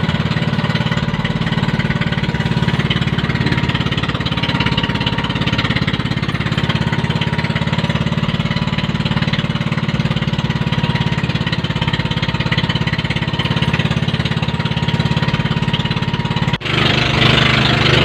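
Engine of a motorized bangka outrigger boat running steadily under way, a fast even chugging beat. It breaks off for an instant about a second and a half before the end, then runs on.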